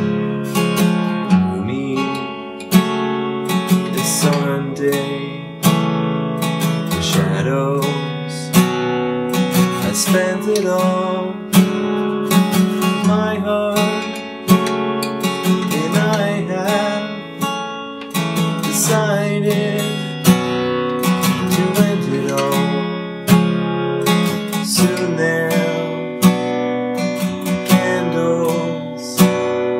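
Baritone acoustic guitar played in a slow rhythm, strummed chords struck every second or so and left to ring between strokes.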